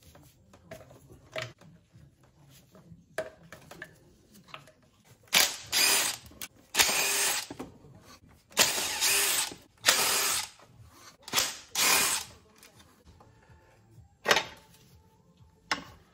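A workshop tool run in about seven short bursts over some seven seconds, each under a second long, with a few light clicks before and after.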